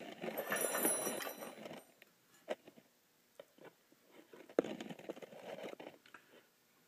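Handling noise of the handheld camera being moved and repositioned: rustling and rubbing for about two seconds, a few scattered clicks, a sharper knock past the middle, then more rustling.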